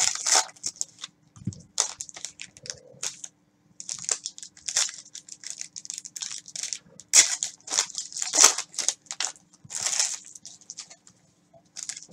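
Plastic card sleeves, wrappers and trading cards crinkling and rustling as gloved hands handle and sort them, in irregular crisp scrapes with a few louder crinkles in the second half.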